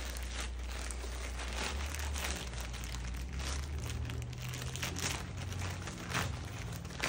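Plastic poly mailer bag crinkling as it is handled and opened by hand, a continuous rustle with frequent sharp crackles.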